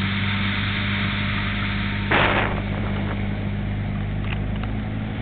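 Motorboat engine running steadily at speed, with the rush of water and wind; a brief, louder rush of noise about two seconds in.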